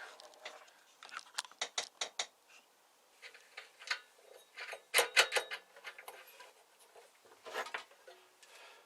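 Light clicks and clinks of small metal parts and tools being handled on a workbench, in several short bursts with pauses between, the busiest about five seconds in.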